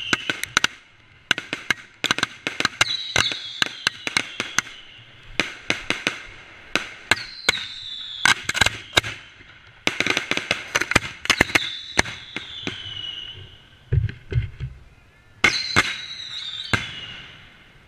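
Fireworks fired close by: several volleys of rapid sharp bangs and crackles, most followed by a whistle that falls in pitch, with a few deep thuds about two-thirds of the way through.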